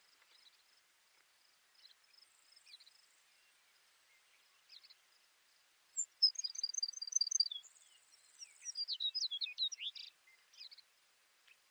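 Baird's sparrow singing: about six seconds in, a run of evenly repeated high notes, a short buzz, then a quicker jumble of short notes, over faint steady insect chirring.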